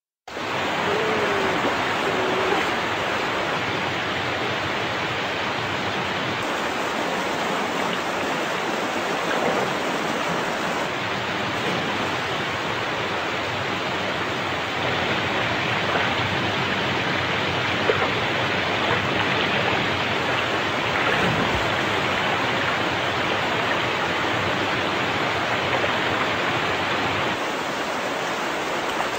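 Water rushing steadily over a low, wide river waterfall and through the rapids below it.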